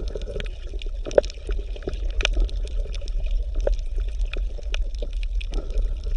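Water gurgling and trickling: irregular small pops and clicks over a steady low hum.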